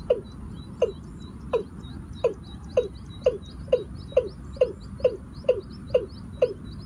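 Watercock (cúm núm) calling a long series of deep, hollow notes. Each note slides down in pitch, and the series speeds up from under one note a second to about two a second.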